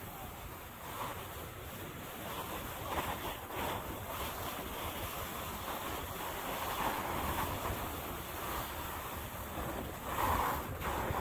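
A splitboard riding over snow: a hissing swish that swells and fades every second or two as it turns, with wind rushing over the microphone.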